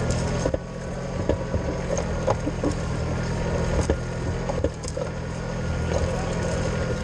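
Kubota compact tractor's diesel engine running steadily under load while ploughing, with frequent short clanks and rattles.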